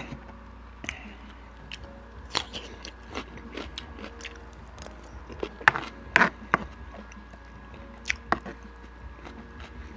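A person chewing a mouthful of food: irregular wet clicks and smacks of the mouth, busiest and loudest about six seconds in.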